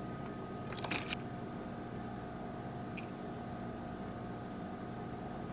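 Steady hum with several fixed pitches, like a running appliance, with a few faint clinks of a metal spoon against a glass dish about a second in and again near three seconds.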